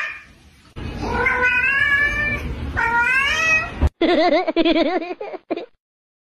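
A cat meowing several times, each call rising in pitch. About four seconds in, it switches to a lower, wavering cry in quick pulses that lasts about a second and a half.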